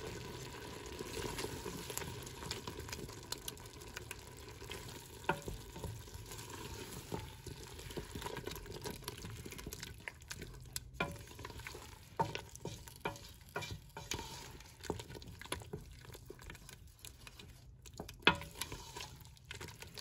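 A wooden spoon stirring sliced onions and carrots in a thick sauce in a stainless steel stockpot, scraping and clicking against the pot, over a soft sizzle from the hot pan. There is a sharp knock about 18 seconds in.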